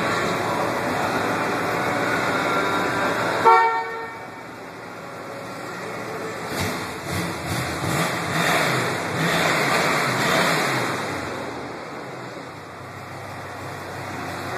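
Ford pickup's big-block V8 running, heard at the tailpipe: it is held at raised revs, peaks loudly about three and a half seconds in and drops back suddenly, then swells and falls off again in the middle.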